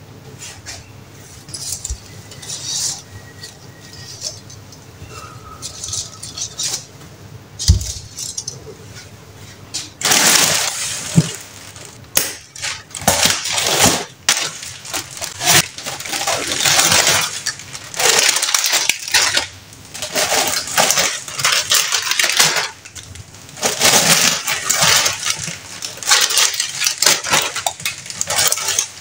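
Groceries being unpacked on a kitchen counter: a few light knocks and a thud at first, then from about ten seconds in, repeated rustling and crinkling of plastic delivery bags and plastic snack packets being handled and set down.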